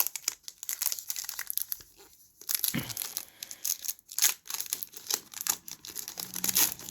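Foil Pokémon card booster-pack wrapper crinkling and tearing as it is handled and opened, in quick crackly rustles with a short lull about two seconds in.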